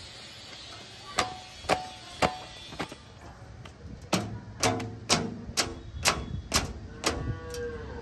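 Background music: a sharp percussive beat, about two hits a second, begins about a second in, and a pitched note slides downward near the end.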